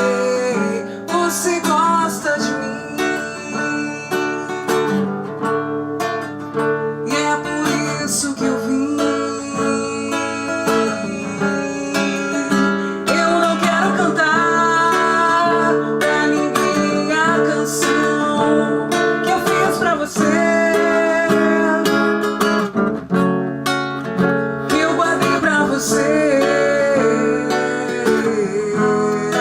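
Music: an acoustic guitar strummed, with singing over it.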